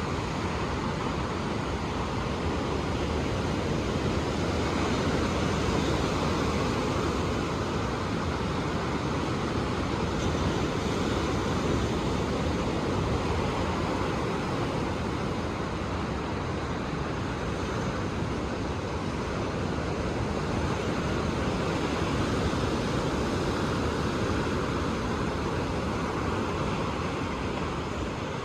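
Ocean surf breaking on a shore: a continuous wash of waves that swells and eases every several seconds.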